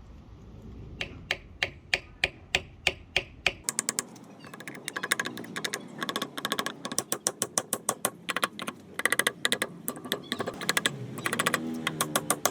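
Rapid series of sharp taps from hand-tool work on a wooden axe handle. About three to four taps a second at first, then quicker and denser from about four seconds in.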